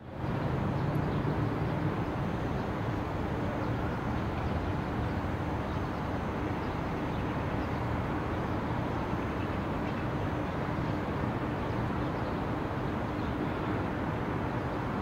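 Steady outdoor din of a dense crowd on a paved street, an even wash of noise with no distinct voices or steps standing out, under a faint steady hum.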